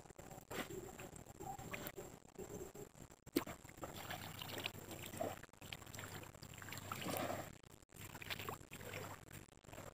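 Shallow water splashing and trickling as hands plunge in to grab a mud crab and lift it out, with irregular small splashes that grow busier about four seconds in.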